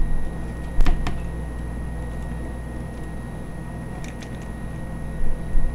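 A metal spoon scraping and clicking against a metal pizza pan while thick scone batter is scooped and pressed into mounds, with a few short sharp clicks. A steady low hum runs underneath.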